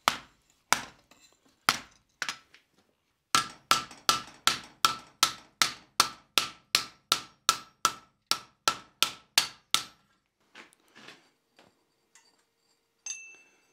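Rawhide mallet striking a hot steel dish on an anvil: a few spaced blows, then a steady run of about three blows a second with a faint ring, used so the blows do not mar the dish's decorated detail. The blows stop about ten seconds in, and a single ringing metal clink comes near the end.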